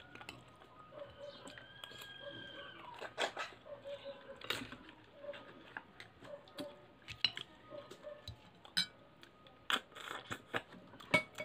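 Spoons and forks clinking against plates and bowls during a meal, in a series of sharp clicks. A rooster crows once in the background, about a second in.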